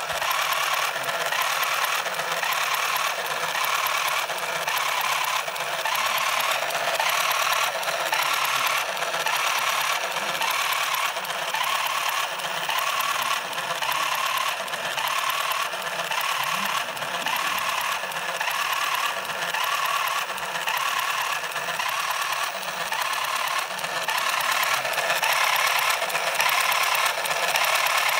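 Sinclair ZX Printer running as it prints onto its aluminium-coated spark paper: a continuous mechanical buzz and rattle that repeats in an even pattern, with the paper feeding out steadily.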